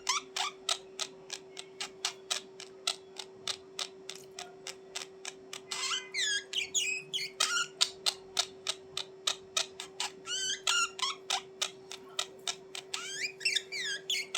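Budgerigars chattering: rapid clicks at about four a second, broken a few times by warbling chirps, over a steady hum.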